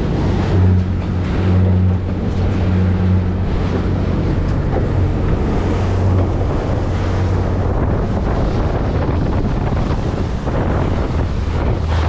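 Boat engine running steadily as a low hum under heavy wind buffeting on the microphone and the rush of sea water past the hull.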